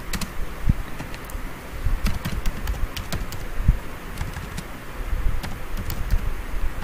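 Computer keyboard typing: irregular, quick key clicks as words are typed.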